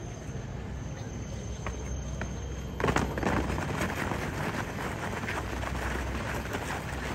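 Many boots scuffing and shuffling on asphalt as a drill platoon dresses its ranks with arms out to the side. This starts suddenly about three seconds in after a quieter stretch and keeps going.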